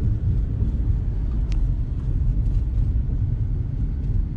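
Steady low rumble of a car driving along a road, engine and tyre noise.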